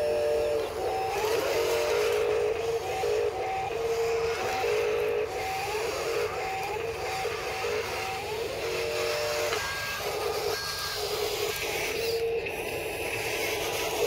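Huina 583 radio-controlled wheel loader's electric motors and gearboxes whining in short on-off bursts as it is driven and its bucket worked, some bursts starting with a quick rise in pitch.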